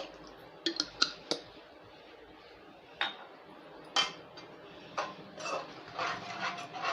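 A spoon clinking and knocking against a cooking pan while stirring a watery gravy: scattered sharp clicks, a few close together about a second in, then roughly one a second, growing into busier clatter near the end.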